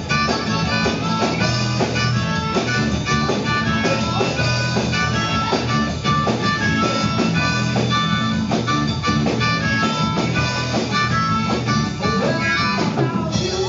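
Blues-rock music with a harmonica lead over guitar and a steady beat.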